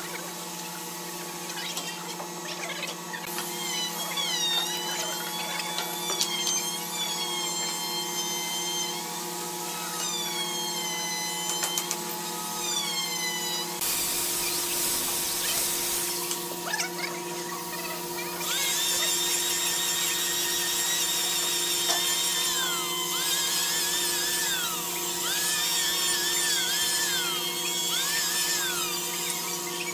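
High-pitched whine of a handheld electric power tool, its pitch repeatedly rising and falling as it speeds up and slows down. Beneath it is a steady hum of workshop machinery.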